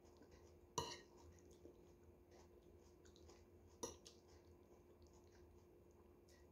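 Two sharp clinks of a metal spoon against a dish, about a second in and again near four seconds, with faint chewing of coleslaw in between.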